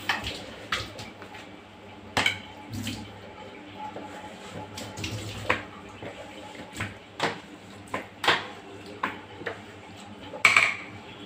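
A running kitchen tap is shut off at the very start, then a string of irregular light clacks and knocks as plastic cleaning items are set down on the counter beside a stainless steel sink.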